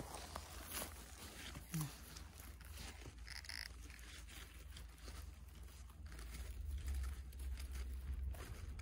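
Soft rustling, crackling and handling noise while mushrooms are picked, with scattered small clicks over a steady low rumble. A brief low call-like sound comes a little under two seconds in.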